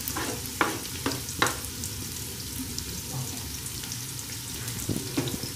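Chopped onions sizzling steadily in hot cooking oil in an aluminium pot, with a few sharp clicks of a spatula scraping minced garlic off a wooden cutting board into the pot.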